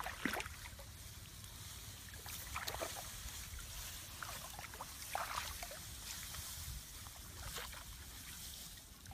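Shallow muddy paddy water sloshing, with a handful of short splashes spread through, as leafy branches are pushed and dragged through it by people wading, over a low steady rumble.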